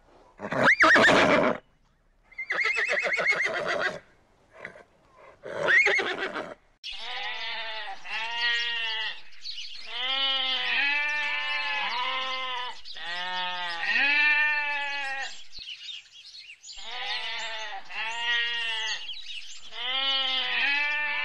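A horse neighing three times, each call loud with a quick rise in pitch and one of them wavering. From about seven seconds in, a flock of sheep bleats, many calls overlapping almost without a break.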